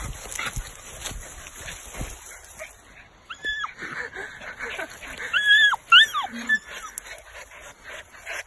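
Miniature American Shepherd puppy giving a string of short, high-pitched yips and whines that rise and fall, starting about three seconds in, with rustling noise before them.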